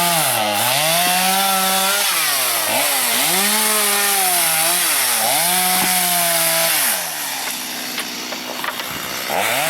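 Two-stroke chainsaw cutting stove wood. The engine pitch dips and recovers several times as the chain bites into and clears the log. About seven seconds in it drops to a lower, quieter level, then comes back to full speed near the end.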